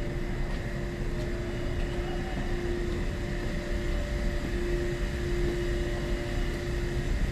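Underground subway station ambience: a steady low rumble with a constant hum.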